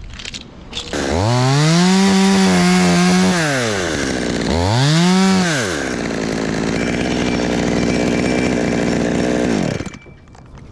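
Chainsaw revved to full throttle twice, each rev rising and falling quickly, then running at a steadier, lower speed until it stops near the end.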